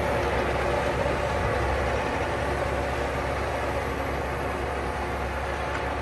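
Massey Ferguson 7720 S tractor's diesel engine running steadily under load while driving a power harrow through ploughed soil, slowly fading as the tractor moves away.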